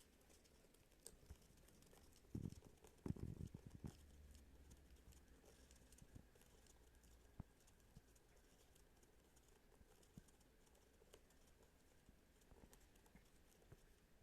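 Faint scattered clicks and taps, typical of a parrot's beak pecking and nibbling at food, with a short run of louder, duller knocks a little over two seconds in.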